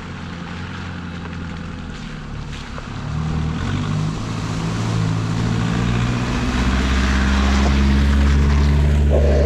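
A Nissan Patrol 4WD drives slowly through a muddy puddle and passes close by. Its engine grows steadily louder as it comes near, loudest just before it goes past, with tyres churning through the mud and water.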